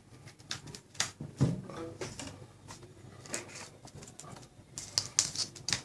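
Scattered clicks and knocks from a wired USB keyboard and its cable being handled and plugged into a PC, with a quick run of clicks near the end.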